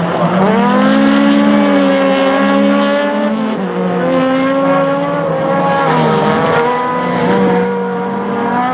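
Rallycross race car engines at full throttle, several cars racing together. The engine notes rise and fall with throttle and gear changes, with a sharp drop in pitch about three and a half seconds in.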